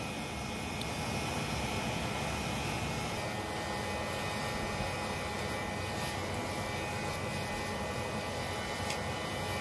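Steady rushing of forced air and fire in a coal-fired bucket forge, with a faint steady whine over it from the air blower. It swells slightly about a second in and then holds even.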